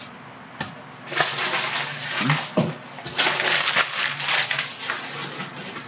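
Plastic foil wrapper of a Prizm retail basketball card pack crinkling and tearing as it is opened, a dense rustle of crackles over a few seconds after a single click.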